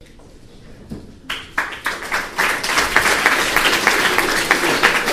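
Audience applauding: a few scattered claps about a second in, building quickly into steady applause.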